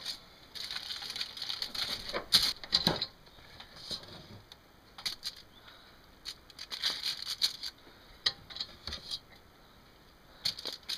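Aluminium foil crinkling and crackling under the hands as it is pressed over a baking pan, in irregular bursts of short crackles, with quieter gaps about four seconds in and again near the end.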